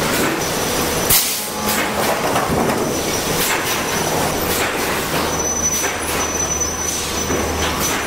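Sawmill machinery running: a steady mechanical rumble from lumber conveyors and transfer chains, broken by repeated sharp clanks of boards and steel.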